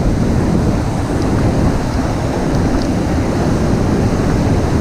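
Steady rush of white water through the rapids below a dam spillway, with wind buffeting the microphone.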